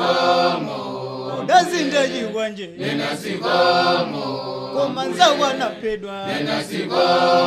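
Choir of voices singing together in harmony, in long phrases with short breaks between them.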